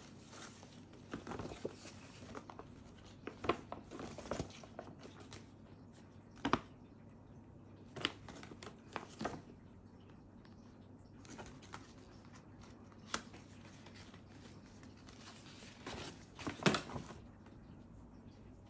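Light, intermittent rustling and crinkling of a paper gift bag and its ribbon being handled, with scattered soft taps as a small box and a cloth pouch are taken out. A few louder rustles stand out, the loudest near the end.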